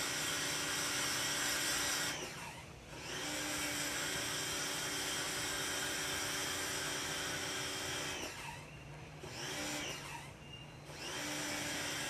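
Fujima HPB302 electric pressure washer running with a steady motor hum and spray hiss. It cuts out briefly three times, about two, eight and ten seconds in, and starts again each time.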